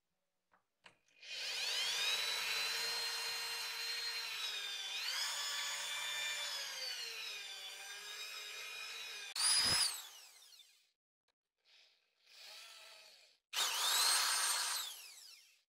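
Electric drill with a twist bit boring into a wooden handle blank: the motor whines steadily for several seconds, its pitch sagging as the bit bites into the wood. It is followed by shorter bursts, each winding down when the trigger is released.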